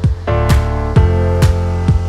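Background music with a steady beat, about two beats a second, under sustained chords; the chord changes shortly after the start.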